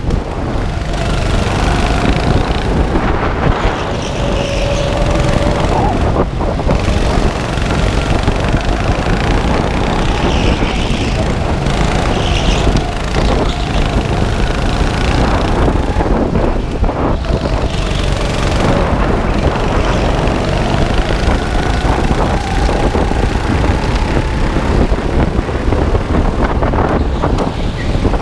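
Go-kart engines running at racing speed, their pitch rising and falling as the karts speed up and brake through the corners, over a steady low rumble of wind and vibration on the onboard microphone.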